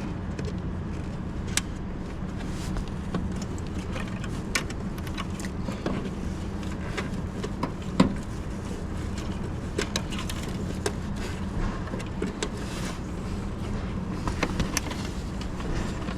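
Scattered small clicks and knocks of cables and plastic parts being handled and pressed into clips, over a steady low hum. One louder knock about eight seconds in.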